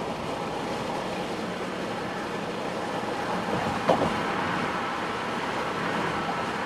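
Steady road noise from a moving vehicle, with one short knock about four seconds in.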